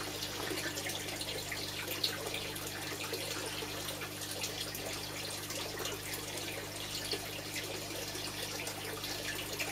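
Koi pond water splashing and trickling steadily, with koi splashing at the surface around a hand held in the water. A low steady hum lies beneath.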